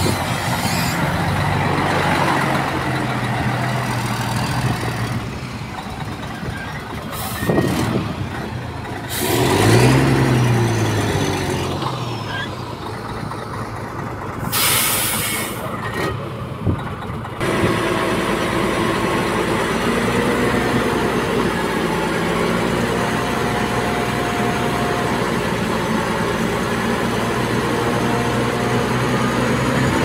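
Heavy diesel construction machinery (dump trucks and a bulldozer) running. About ten seconds in, an engine revs up and back down, and about halfway through there is a short hiss of air. A little past halfway the sound changes abruptly to a steadier engine drone.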